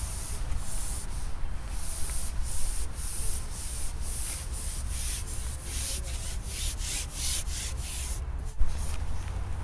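Garbolino carbon pole being slid back hand over hand across the angler's lap while a hooked carp is played: a rubbing swish with each pull, about two or three strokes a second, over a low wind rumble on the microphone. The strokes stop about 8 s in, followed by one sharp knock.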